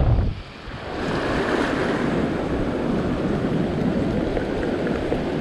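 Seawater washing across a shallow rock shelf, a steady rush of surf. Wind buffets the microphone briefly at the very start, and the water sound builds up about a second in.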